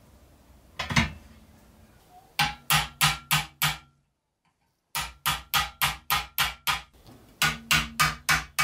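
Hammer driving a steel punch against the pressed-steel cab of a 1963 Tonka dump truck clamped in a bench vise, knocking out dents: a run of sharp metallic taps about three a second, with a faint ring between strikes. A single knock comes about a second in, and the tapping stops briefly near the middle.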